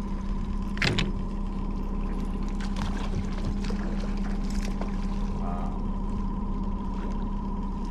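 Honda outboard motor running steadily at trolling speed, an even hum, with a single sharp click about a second in.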